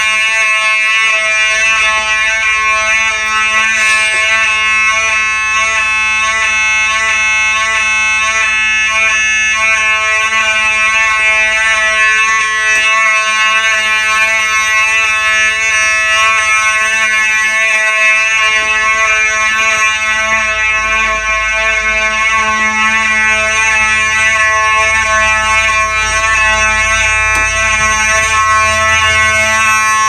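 1980s Simplex 2903 fire alarm horn sounding continuously: one steady, buzzing tone with no pauses, loud.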